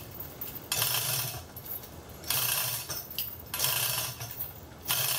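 Hand chain of a manual chain hoist rattling through the hoist in pulls, lifting an engine out of the car. The rattle comes in four bursts about a second and a half apart.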